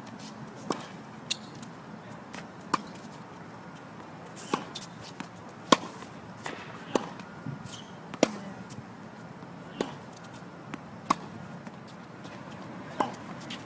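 Tennis ball struck by rackets and bouncing on a hard court during a groundstroke rally: sharp pops roughly every second or second and a half, with one or two louder strikes midway.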